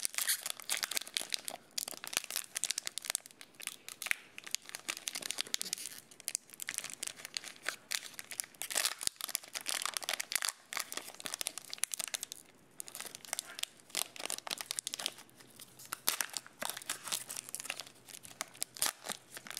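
Foil wrapper of a Donruss football card pack being torn open and crinkled by hand: an irregular run of crackles and rips with short pauses.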